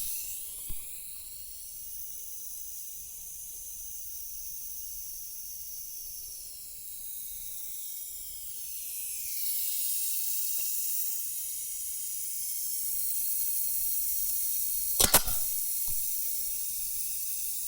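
Steady hiss of compressed air from a pneumatic finish nailer setup, with the nailer firing in sharp snaps about fifteen seconds in.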